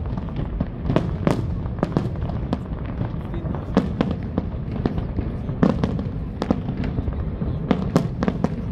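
Fireworks display: many sharp bangs and crackling pops in quick, irregular succession over a steady low rumble.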